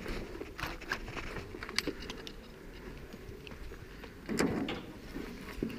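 Faint scattered clicks and rustling, with a brief louder rustle about four seconds in.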